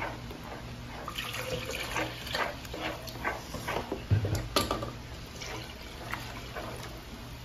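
Broth poured from a glass pitcher into a thick red sauce in a frying pan, with a spoon stirring and slapping through the wet sauce in short irregular strokes.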